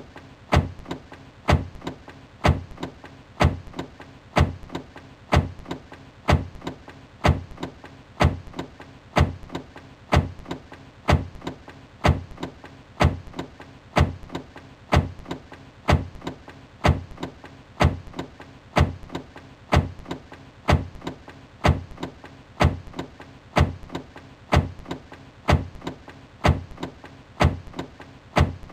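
Car door slamming shut over and over, about once a second, each a sharp knock with a short low ring after it.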